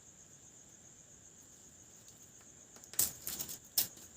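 Short crackling clicks about three seconds into otherwise quiet room tone, as adhesive tape is handled and pressed onto an unpowered table-fan motor's shaft. A faint steady high-pitched tone runs underneath.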